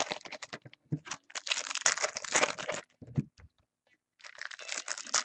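Plastic and foil trading-card packaging being torn open and crinkled by hand, in two crackling bursts with a short pause about three seconds in.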